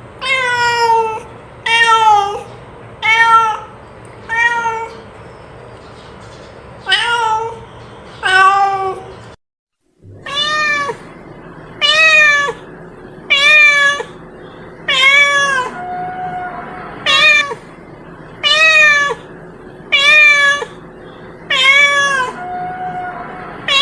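Domestic cat meowing over and over, short meows that rise and fall in pitch, repeated about once every second or so. A brief silent break about ten seconds in, then the meows carry on at a steady pace.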